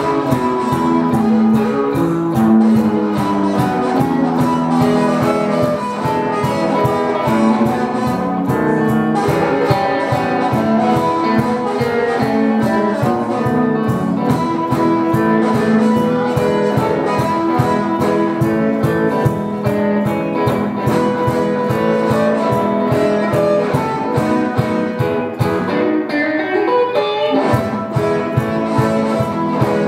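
Amplified blues harmonica playing held, bending notes over an electric guitar's steady rhythm accompaniment. Near the end the bass drops out briefly under a rising run before the groove comes back.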